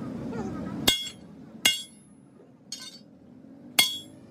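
Sledgehammer blows on a steel leaf-spring leaf held across an anvil: sharp ringing metallic strikes, about one a second, four in all, the third fainter. The leaf is being hammered to reshape its curve.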